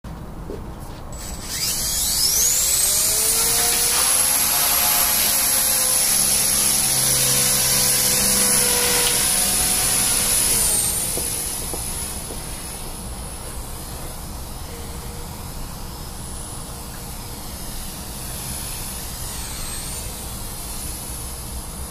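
Small electric RC helicopter (Heli-Max Novus 125CP) with an upgraded brushless motor spooling up: a high whine rises steeply about a second and a half in, then holds steady with the rotor buzzing underneath. Around eleven seconds in it turns quieter as the helicopter climbs away, with brief dips in pitch twice.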